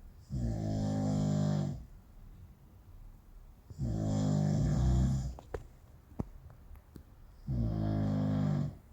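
A person snoring hard: three long snores, each about a second and a half, roughly every three and a half seconds, with a few faint clicks after the second.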